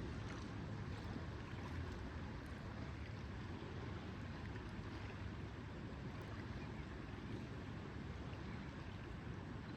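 Lakeside ambience: steady low wash of water lapping at the shore with a light wind rumble, and a few faint small ticks.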